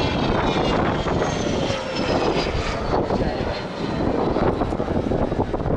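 Jet aircraft flying past during an aerobatic display, its engine a loud, steady rushing noise with a high whine that falls in pitch over the first few seconds as it passes.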